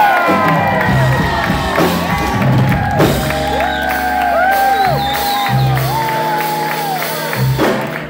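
A live jazz band playing, with lead lines that swoop up and down in pitch over steady bass notes. Whoops and shouts come from the crowd.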